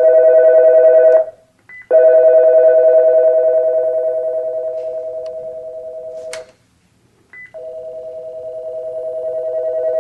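Toshiba DP5022-SDM digital desk phone's ringer playing its two-tone ring over the speaker as the ringer volume is adjusted. The sound comes in three bursts with short beeps between them. It steps down in loudness through the middle burst and back up through the last.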